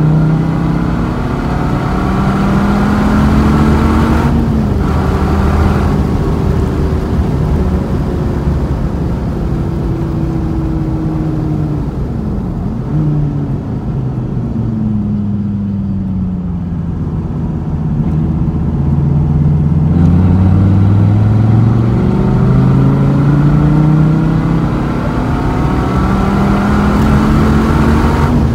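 Dodge Viper's V10 engine heard from inside the cabin, accelerating hard through the gears, its pitch climbing and dropping back at each shift. It eases off about halfway through, then pulls hard again through several more rising sweeps.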